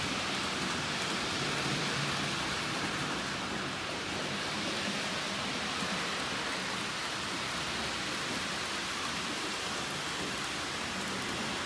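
Model trains running on the layout's track: a steady, even whirring hiss of small wheels and motors on the rails.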